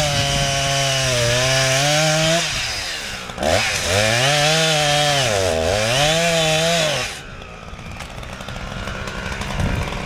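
Petrol chainsaw running at high revs as it cuts into a tree trunk, its engine pitch dipping and recovering several times. About seven seconds in it drops back to a lower, quieter speed, then revs up again near the end.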